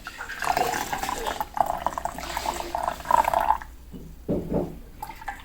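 Water pouring and splashing, with a short lower burst of sound a little after four seconds in.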